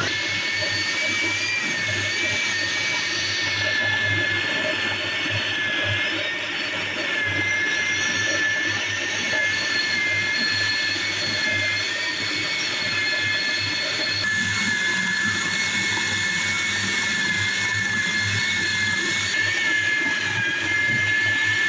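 Electric food chopper running steadily as it minces keema with onion, garlic, green chilli and ginger: a constant high whine over a low motor hum.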